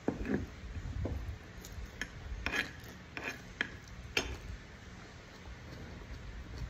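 Chewing and mouth smacking of a man eating chicken and rice with his fingers: short clicks and smacks, a cluster right at the start and then scattered ones up to about four seconds in, over a low steady hum.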